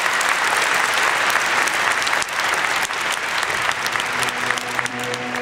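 Audience applauding, a dense steady clatter of many hands. About four seconds in, sustained low musical tones come in beneath it as the applause eases.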